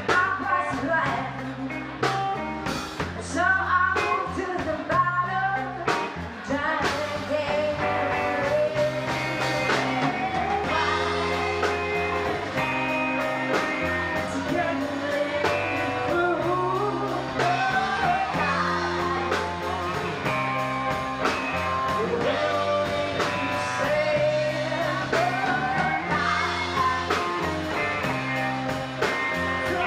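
Live rock band with a woman singing lead, backed by electric guitar, keyboards, bass and a drum kit keeping a steady beat.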